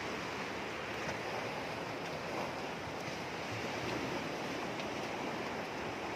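Sea waves washing steadily, with wind, as an even rushing noise.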